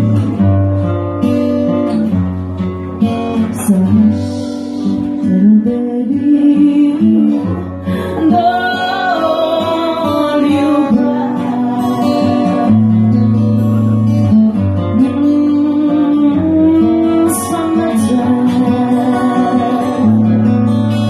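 A woman singing into a microphone, accompanied by a man playing an acoustic guitar, amplified through a small PA.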